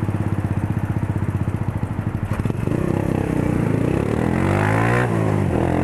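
Motorcycle engine pulsing at low revs, then accelerating with rising pitch, dipping at a gear change about five seconds in and rising again.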